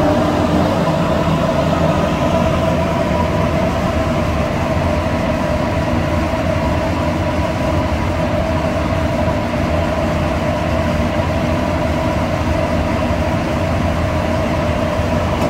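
Steady mechanical drone of machinery running in a spray booth: an even rush of air with low rumble and a couple of steady whining tones, unchanging throughout.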